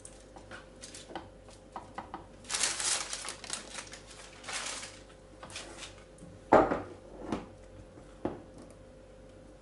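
Kitchen handling sounds: light taps and rustling as a sponge cake layer is pressed down on a foil-lined board, then a sharp clink of a utensil against a stainless steel pot about six and a half seconds in, followed by two lighter knocks.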